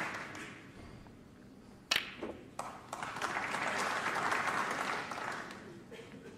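Applause dies away, then a sharp click of a cue tip striking a snooker cue ball about two seconds in, with a smaller ball-on-ball click just after as the black is struck. Audience applause follows as the black goes down, then fades.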